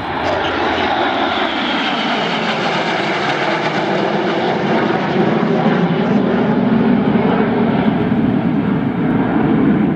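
Jet noise from a formation of five PZL-Mielec TS-11 Iskra jet trainers flying overhead, their single turbojet engines giving a loud steady rush. A whine slides down in pitch over the first few seconds as they pass, and the sound grows louder in the second half.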